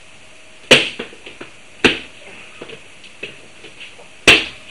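Three loud, sharp slaps or smacks of blows to the face: one about a second in, a second one about a second later, and a third near the end, with a few faint small knocks between them.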